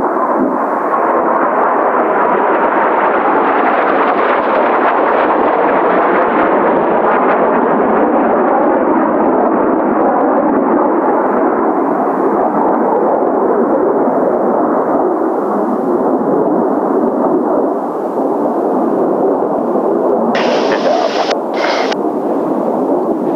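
Jet noise of Kawasaki T-4 trainers flying a formation turn, a steady loud rush that swells and brightens a few seconds in with a faint falling pitch as the jets pass, mixed with strong gusty wind on the microphone. Two brief high hisses sound near the end.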